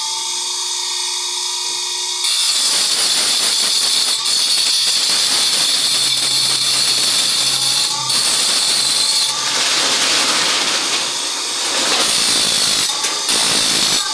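Bench grinder's abrasive wheel spinning with a steady whine. From about two seconds in, steel saw-blade teeth are pressed against it, giving a loud, harsh, high hissing grind as the teeth are sharpened.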